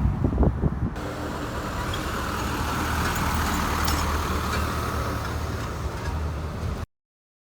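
City street traffic: a steady low engine rumble with road noise, a few knocks in the first second, cutting off suddenly near the end.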